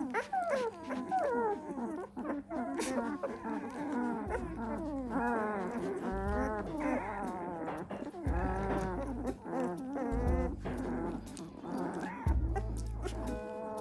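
A litter of two-week-old Belgian Malinois puppies squeaking and groaning as they fall asleep, many short high squeals rising and falling in pitch. Blues music with a low bass line plays underneath.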